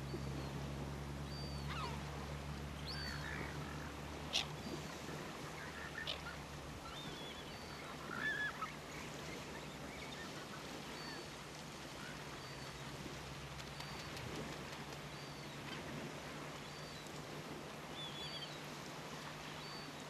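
Caspian terns calling: short high whistled notes repeated about once a second, with a few lower, harsher calls in the first half.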